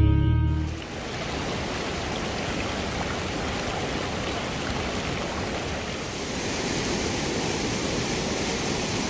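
Steady rushing of a mountain stream cascading over boulders as white water. Background music fades out within the first second.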